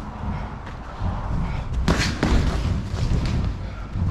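Boxing gloves landing during sparring: a few short thudding hits, the two sharpest about two seconds in, over a steady low rumble.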